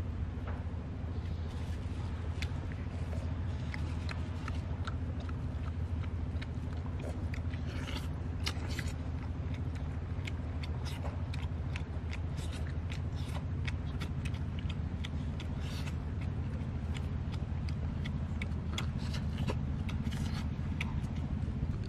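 Two boys eating cooked fish with their fingers: many short clicks and smacks of chewing and of picking flesh from the bones, over a steady low rumble.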